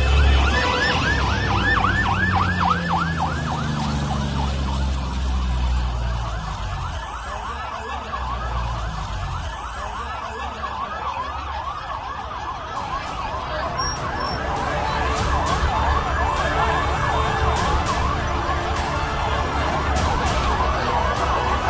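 Several emergency-vehicle sirens sound together in a fast rising-and-falling yelp, about three sweeps a second, over a low rumble.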